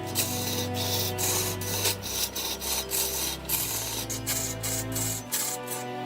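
Background music over the rasping, scraping sound of a cutting tool carving a large block of wood as it turns on a lathe, in uneven strokes.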